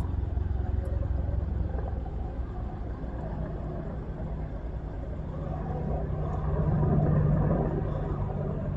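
Steady low mechanical rumble that swells to its loudest about seven seconds in.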